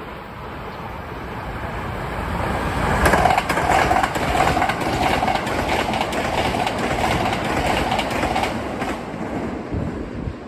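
Hankyu 1000 series electric train passing through the station at speed without stopping. Its running sound grows louder as it approaches, peaks about three seconds in with a rapid clickety-clack of wheels over rail joints, and fades away near the end.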